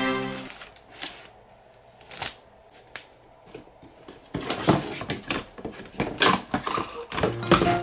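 Hands rummaging inside a cardboard box, with plastic toy parts and cardboard knocking and rustling in a run of sharp clicks. The clicks are sparse and faint for a few seconds, then come thick and louder in the second half.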